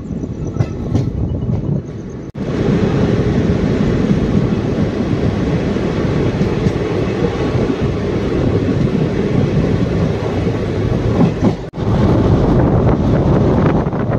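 Ernakulam–KSR Bengaluru Intercity Express running at speed: a steady, loud rumble and rattle of the coaches' wheels on the track, heard from an open coach doorway. The sound drops out briefly twice.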